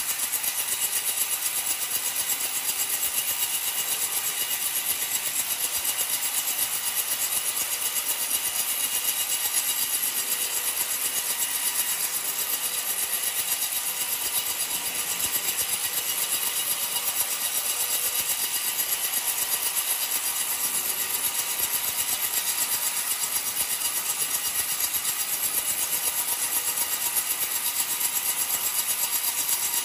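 Homemade band sawmill's blade cutting steadily lengthwise through an old coconut log: an even hiss of the cut with a faint steady whine underneath.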